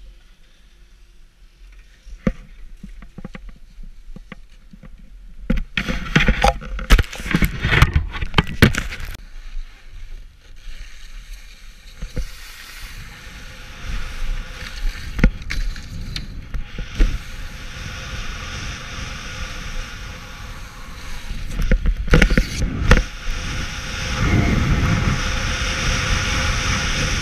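Skis sliding on groomed snow, with wind rushing over an action camera's microphone, a steady rush that grows louder toward the end. Near the start it is quiet with a few small knocks, then a flurry of loud knocks and clatter comes about six seconds in.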